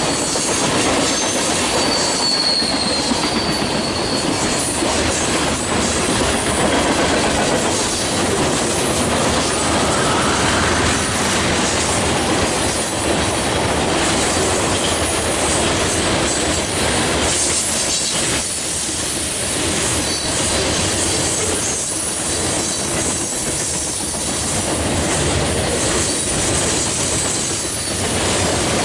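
Railroad cars rolling past in a steady, loud rumble of steel wheels on rail, with clickety-clack over the joints and a few faint, brief high wheel squeals.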